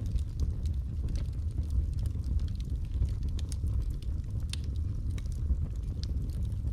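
Wood logs burning in a fireplace: a steady low rumble of flame with scattered sharp crackles and pops.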